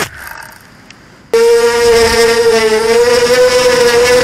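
FPV racing quadcopter's brushless motors (EMAX 2204s on 4S) heard through the onboard camera. The motor sound cuts off abruptly, leaving a second or so of faint rustling, then the motors come in suddenly at a steady, high hum with a slight waver in pitch.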